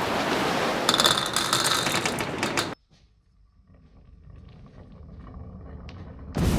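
Marbles rolling and clattering along rain-gutter and wooden-rail tracks: a dense rattle of many small clicks. It cuts off suddenly a little under three seconds in, comes back faint and slowly grows, then is loud again near the end.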